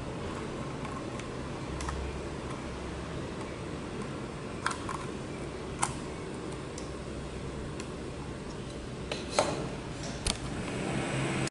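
Small hard plastic clicks and taps as a USB charging cable is plugged into a spy watch's camera module and the module is handled and set down on a table; a handful of separate clicks, the loudest about two-thirds of the way through, over a steady low hiss.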